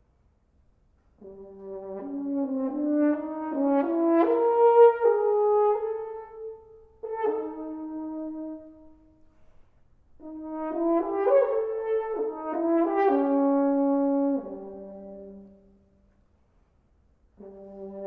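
Unaccompanied French horn playing slow melodic phrases of held and moving notes, with short rests between them; a new phrase begins near the end.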